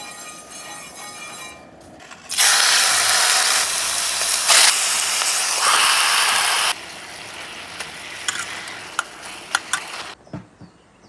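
Marinated chicken pieces go into hot oil in a skillet about two seconds in, setting off a loud sizzle. The sizzle eases after a few seconds, and metal tongs click against the pan.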